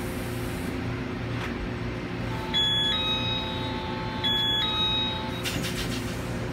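Door-closing warning chime on a Taiwan Railways Tze-Chiang express: two short electronic beeps about two seconds apart over a held tone, over the steady hum of the train's equipment. A brief clatter follows near the end as the door mechanism starts.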